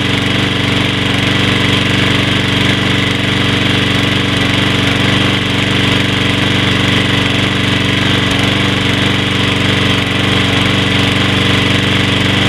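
Troy-Bilt push mower's Briggs & Stratton 675 Series single-cylinder four-stroke engine running at a steady speed, heard close to the muffler. It runs evenly without surging, its carburetor freshly cleaned.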